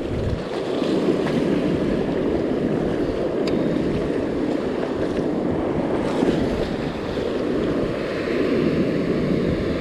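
Ocean surf washing up a beach as a steady rushing sound, with wind on the microphone.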